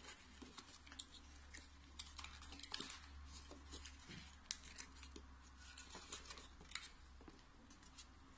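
Folded paper of an origami lotus rustling and crinkling faintly as fingers press and shape its petals, in small irregular crackles.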